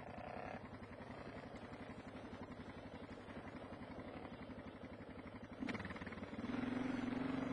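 Single-cylinder four-stroke dual-sport motorcycle engine running at low revs with an even pulse. A little before six seconds in it is given throttle and runs louder.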